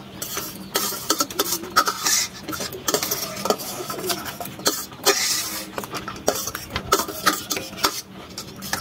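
Metal spoons and forks clinking and scraping against steel plates while noodles are scooped and eaten, in many short, irregular clicks and scrapes.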